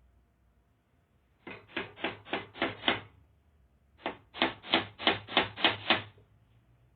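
A hammer driving nails: two runs of sharp blows about three a second, the first of about six growing louder, then after a short pause about seven more.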